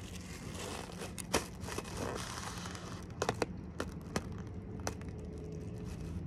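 A pine cone pressed and rubbed against inflated plastic packaging, poking small holes in it. The plastic crinkles and scratches, with a handful of sharp clicks, most of them between about three and five seconds in.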